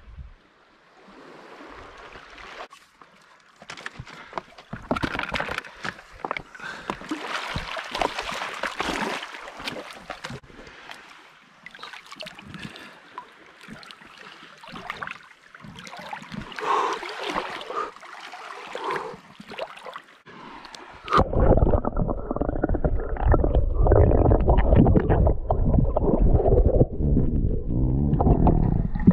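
Water splashing and sloshing with scattered knocks and clicks. About 21 s in it switches abruptly to a louder, muffled low rumbling.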